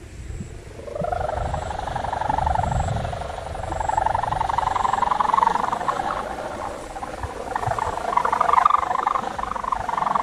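Kite hummer on a flying kite, droning in the wind. It sets in about a second in as a buzzing tone that wavers up and down in pitch and swells louder from about four seconds in.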